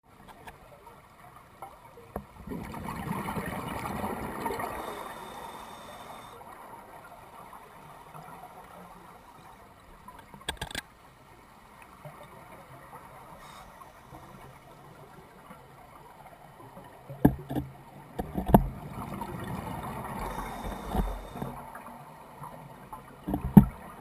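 Scuba diver's exhaled breath bubbling out of the regulator, heard muffled through a GoPro's underwater housing: two long exhalations, one a couple of seconds in and one about eighteen seconds in. A few sharp knocks sound in the second half.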